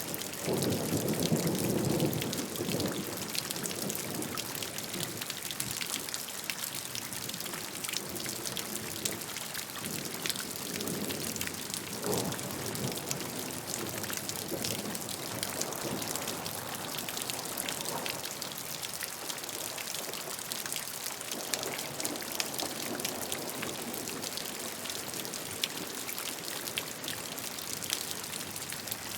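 Steady rainfall: a dense patter of drops over an even hiss. Soft low rumbles swell in the first few seconds and again around the middle and later on.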